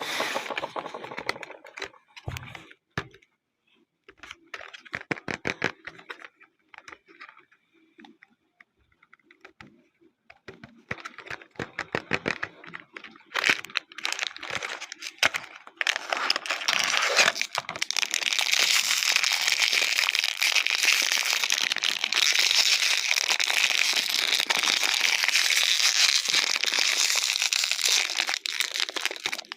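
Blind-box toy packaging being opened by hand: scattered crackles, taps and tearing at first, then, from about halfway through, a long stretch of continuous crinkling of the wrapper.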